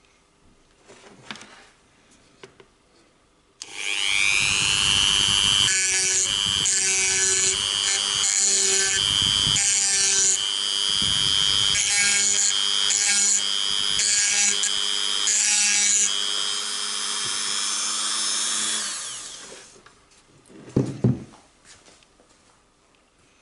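Dremel rotary tool with a grinding stone spinning up with a rising whine, then grinding the throat and feed ramp of a .45 1911 barrel in about eight short, regular passes, then winding down. A couple of light knocks follow near the end.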